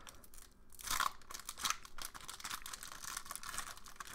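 Foil wrapper of a hockey card pack crinkling and tearing as it is opened, with a sharper rip about a second in.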